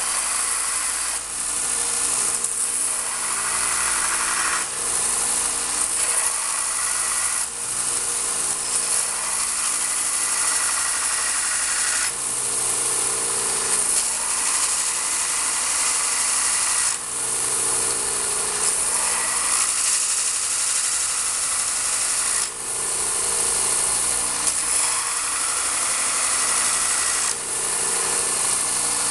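A 4x36 belt sander running while a crane-cable Damascus knife blade is ground against its belt to form a hollow grind. The grinding is steady and hissing, and it dips briefly every few seconds.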